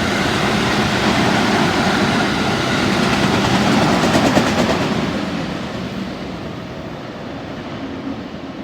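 JR West electric train running through the station. Its rolling noise is loud for the first four or five seconds, then fades steadily as it draws away.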